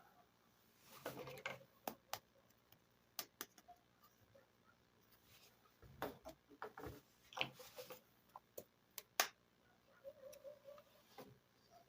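Light clicks and taps of small plastic toy pieces being handled and set down, at irregular spacing, with a sharper tap about nine seconds in.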